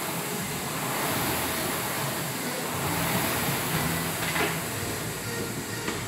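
Air rowing machine's flywheel fan whirring as it is pulled through stroke after stroke, a steady rushing noise.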